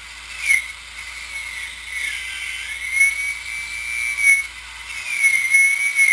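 A 4.5-inch angle grinder with a wire wheel running against a steel beam, stripping old paint, rust and grime. It gives a high whine that wavers and dips in pitch as the load changes.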